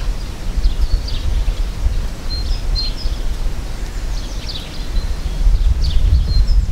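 A steady low rumble of wind on the microphone, with small birds chirping and whistling in short high calls every second or so.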